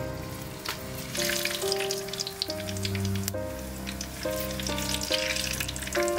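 Cumin and mustard seeds sizzling and crackling in hot oil in a clay pot, the crackle starting about a second in, over background music.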